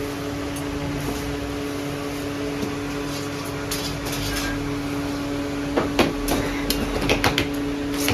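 Sharp knocks and clatters, several in quick succession about six to seven and a half seconds in, over a steady low hum.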